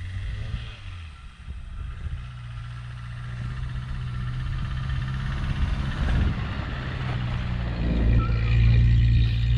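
Volkswagen Golf Mk2 engine revving as the car drives through deep snow, growing steadily louder as it comes closer, loudest near the end.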